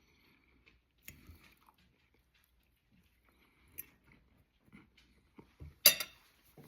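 A person eating close to the microphone: soft chewing and biting with small scattered clicks. About six seconds in comes one sharp knock, the loudest sound.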